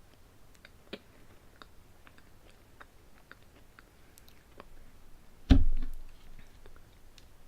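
Chewing soft pumpkin cream pie, with small wet mouth clicks. About five and a half seconds in there is a single dull thump, the loudest sound here.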